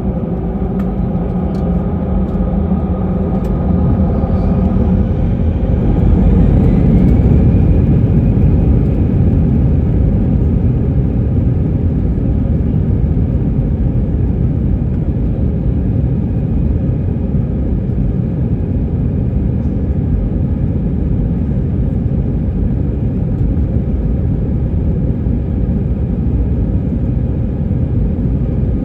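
Airbus A320 jet engines and airframe heard from inside the passenger cabin: a loud low rumble that grows louder about five seconds in, with a whine rising in pitch, then holds steady.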